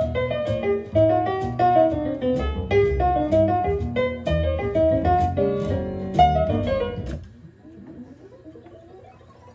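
Jazz piano music playing back from tape on an Otari MX-5050B2 reel-to-reel deck. It cuts off suddenly about seven seconds in, leaving a faint whir as the reels spin in fast wind.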